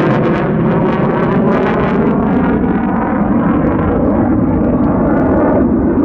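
Single Pratt & Whitney F135 afterburning turbofan of an F-35A Lightning II flying a display: a loud, steady jet roar. Its high hiss thins out about halfway through as the jet draws away.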